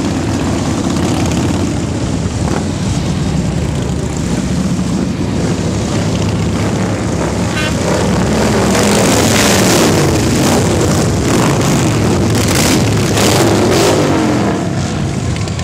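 A stream of cruiser motorcycles riding past close by, many engines running at once. Engine pitches rise and fall as bikes pass, busiest and loudest from about 8 to 14 seconds in.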